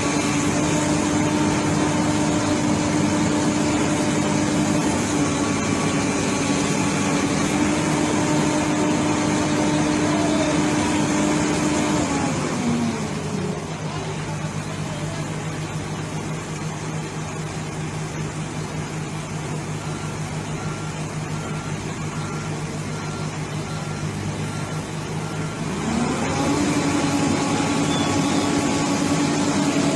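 A heavy machine's engine running at steady high revs, dropping to a lower idle about twelve seconds in, then revving back up near the end. Faint, evenly spaced beeps sound while it is at the lower speed.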